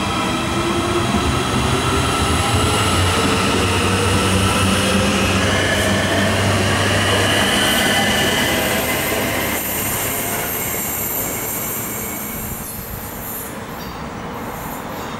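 Suburban electric multiple unit pulling away from the platform: its traction motors whine in several tones that rise steadily in pitch as it accelerates, over a rumble of wheels on rail. It fades after about ten seconds.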